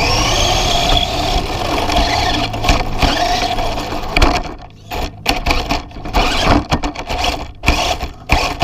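Remote-control car's motor whining steadily as it drives, with tyre and chassis noise, heard from a camera mounted on the car. About four seconds in, the motor turns to short stop-start bursts, broken up by knocks and bumps.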